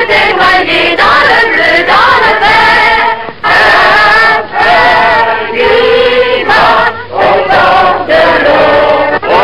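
Choir singing a French song with music behind it.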